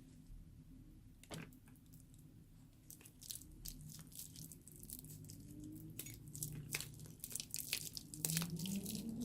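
Slime being squeezed and handled, with sticky, wet clicks and crackles that come sparsely at first and crowd together from about three seconds in.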